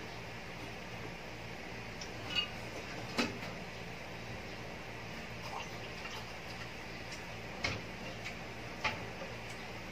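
Scattered sharp clicks and small cracks, four of them louder, from hands picking apart cooked crab and prawn shells while eating, over a steady low background hum.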